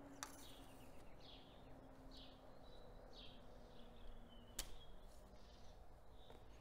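Near silence: faint high bird chirps repeat in the background, with a soft click just after the start and another about four and a half seconds in.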